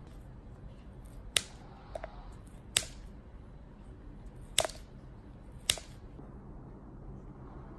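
Scissors snipping through hard dog treats to cut them into small pieces: four sharp snips a second or more apart, with a fainter click between the first two.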